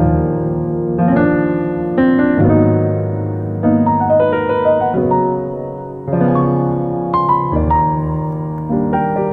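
Background music: a piano playing chords, a new chord struck about every second, each ringing on and fading.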